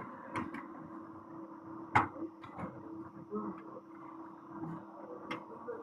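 Scattered sharp clicks and knocks of hand tools and parts being handled during an alternator replacement, the loudest knock about two seconds in, over a steady low hum.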